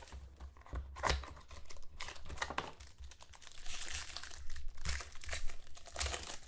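Clear plastic wrapper crinkling and tearing as it is pulled off a sealed pack of trading cards by hand, in bursts, with one sharp rip about a second in and busier crinkling through the second half.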